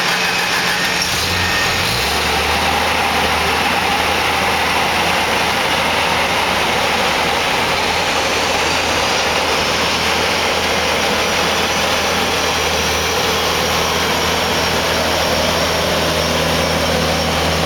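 Tennant 385 ride-on floor sweeper's LP-gas engine running steadily as the machine drives, a low engine hum under a loud, even rushing noise.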